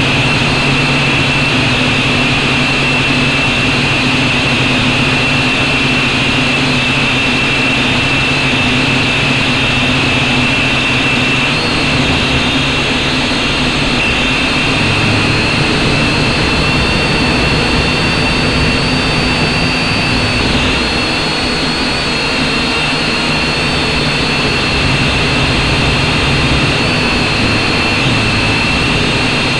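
Small camera drone's motors and propellers running steadily while it hovers, a continuous high whine over a low hum, with a higher tone joining about halfway through.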